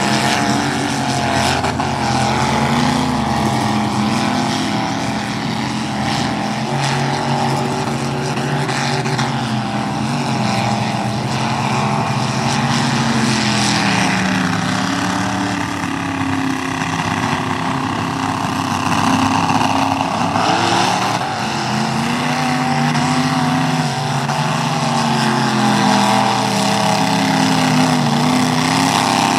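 Mud-bogging vehicle's engine running hard at high revs, its pitch rising and falling over and over as the throttle is worked.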